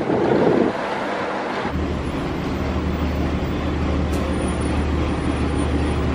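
Wind buffeting the microphone at first. From about two seconds in, a transit bus idles at a stop with a steady low engine hum.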